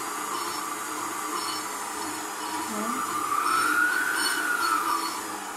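Milux MFM-3615 stand mixer's base-mounted motor running, spinning the dough hook in the empty stainless steel bowl. It makes a steady whine that rises in pitch and gets louder about three and a half seconds in, then falls back near the end.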